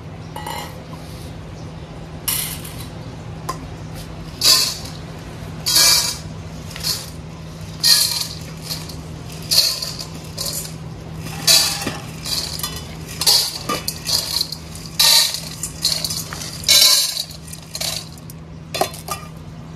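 Dry dog kibble rattling out of a stainless steel bowl into a row of stainless steel feeding bowls, with metal bowls clinking against each other, in about a dozen short, irregular bursts.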